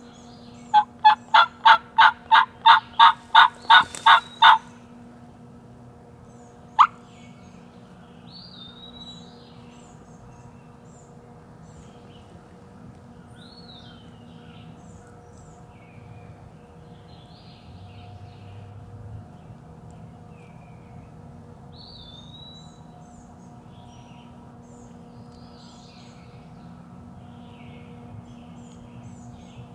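Turkey yelping: a run of about a dozen loud, evenly spaced yelps, roughly three a second, then a single sharp note about seven seconds in. Faint songbirds chirp through the rest.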